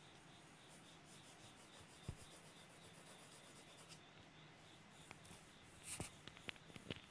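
Faint pencil scratching on drawing paper: quick, even back-and-forth strokes for the first few seconds, then a louder scrape and a few sharp ticks near the end.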